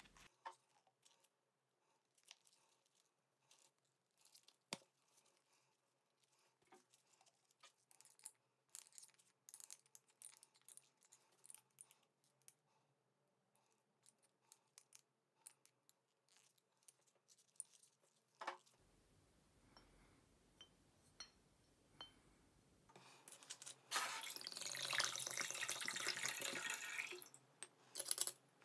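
Faint scattered clicks and taps of soaked wooden pieces against a glass bottle. Near the end, water pours from the tilted bottle for a few seconds, the loudest sound.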